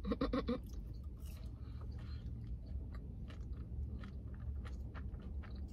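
A person chewing food close to the microphone: a string of small wet mouth clicks and smacks, over a steady low hum.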